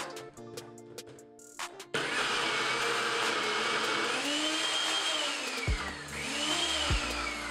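NutriBullet blender starts about two seconds in and runs loudly, blending ice and frozen strawberries; its motor whine climbs and drops twice. Background music with a beat plays throughout, alone before the blender starts.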